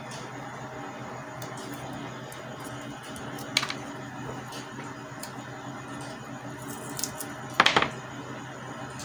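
Double-sided tape being handled and peeled with the fingers: a sharp crackle about three and a half seconds in and a short cluster of crackles near the end, over a steady low hum.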